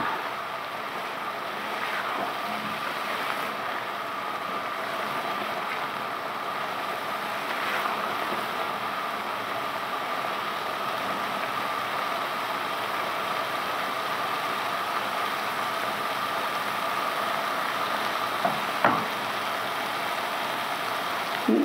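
Courgette curry cooking down in a pan on a high gas flame, a steady hiss with a faint steady hum under it, as the water it released cooks off. The spatula knocks against the pan a few times, most sharply near the end.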